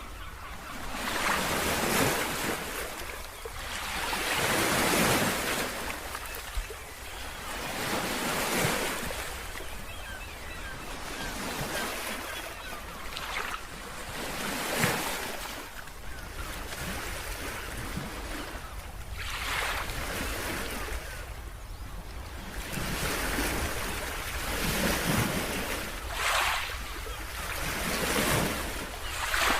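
Ocean waves breaking on a shore, the rush of surf swelling and falling back every few seconds.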